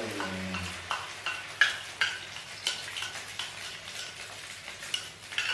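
Beaten egg and rice hitting hot oil in a frying pan and sizzling steadily, with repeated sharp clicks of chopsticks scraping the mixture out of the bowl and knocking against it and the pan.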